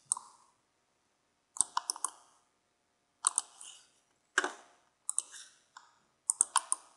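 Computer mouse and keyboard clicks in short clusters of two or three, about six clusters spread through a few seconds, as text is selected, copied and pasted.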